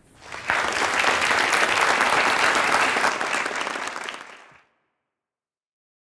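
Audience applauding, strongest in the first three seconds and then fading out, cut off to silence near the end.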